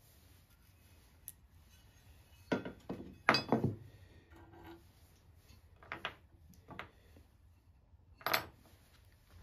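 Clinks and knocks of cast-iron school desk seat hinge parts being handled, metal striking metal and wood, about seven sharp hits with the loudest cluster between two and four seconds in and another near the end.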